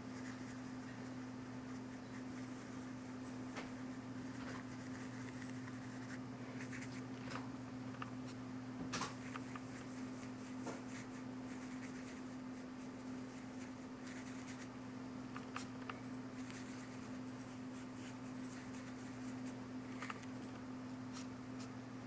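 Small paintbrush dabbing and stroking paint onto paper: faint, irregular taps and scratches over a steady low hum.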